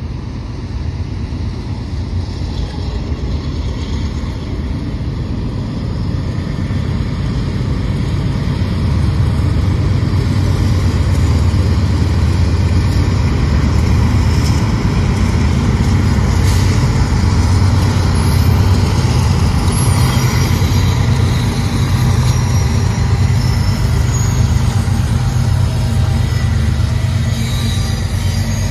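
BNSF freight train led by four GE diesel-electric locomotives (a Dash 9-44CW, an AC4400CW, an ET44C4 and an ES44AC) passing. A deep engine rumble grows louder over the first ten seconds or so as the locomotives come by, then holds steady as the train of tank cars rolls past.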